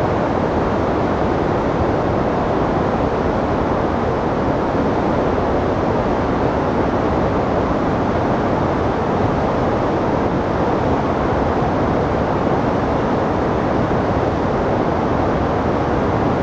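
Pemigewasset River in flood, its muddy whitewater rushing over the rapids through a rocky gorge: a loud, steady rush of water without a break.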